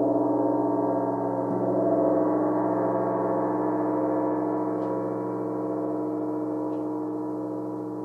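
Large rimless flat gong ringing with a dense howling drone of many sustained overtones. A soft mallet stroke about a second and a half in makes it swell, and it then fades slowly.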